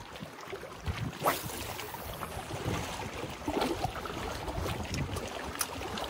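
Wind buffeting the microphone over small waves lapping against a rocky shore. About a second in, a spinning rod is cast: a quick swish, then the line hissing off the reel for about a second.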